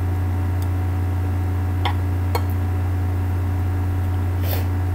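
A steady low electrical hum, with a few faint clicks and clinks of a metal fork against a bowl while eating.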